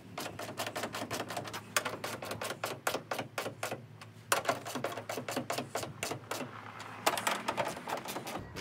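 Rapid clicking, several clicks a second, as the screws of a Bushwacker fender flare are turned in with a small hand tool, with a short pause about four seconds in.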